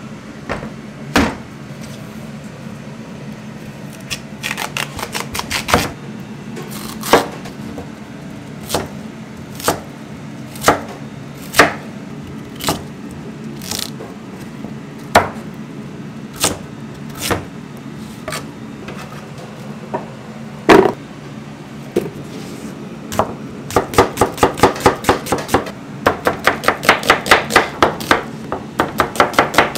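Chef's knife cutting peeled onions on a plastic cutting board. Single strokes come about a second apart, with quick runs of chopping, about five strokes a second, briefly early and again through the last several seconds.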